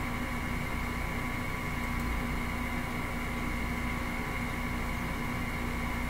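Steady background hum and hiss with a few constant tones and a low rumble, unchanging throughout: machine-like room noise.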